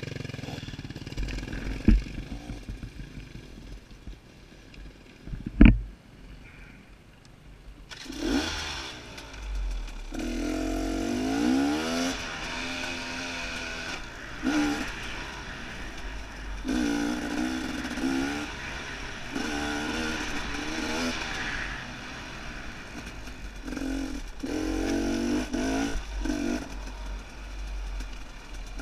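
Dirt bike engine heard from the rider's helmet, revving in repeated bursts that rise in pitch as it climbs the trail, over a low rumble of wind on the microphone. Two sharp knocks come in the first six seconds, while the engine is still quiet.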